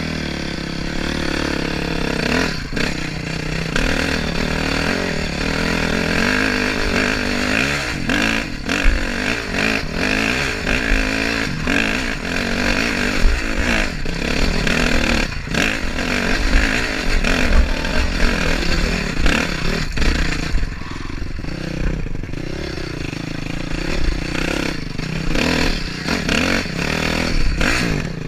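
Dirt bike engine running and revving up and down as the bike is ridden over rough ground, with frequent knocks and rattles from the bike over the bumps.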